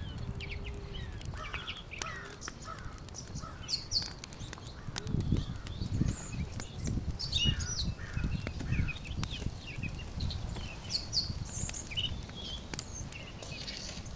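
Small birds chirping in many short calls, over a low uneven rumble and a few faint clicks.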